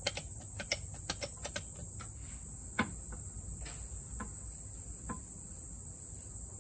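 A steady high-pitched insect buzz, with sharp clicks and taps from hand work on the rear air strut's top mounting: several quick ones in the first second and a half, then a few spaced ones.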